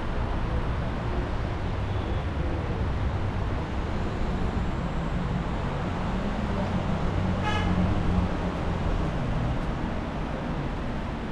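City street traffic: a steady rumble of passing cars. A short car horn toot comes about seven and a half seconds in.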